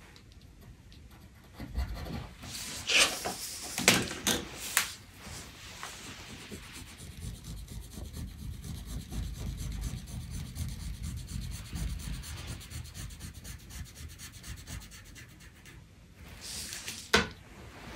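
Paper pattern pieces moved and slid across a wooden tabletop, with a few sharp rustles and knocks, then a pencil drawing a long curved line on the paper, a steady scratchy rubbing for about ten seconds.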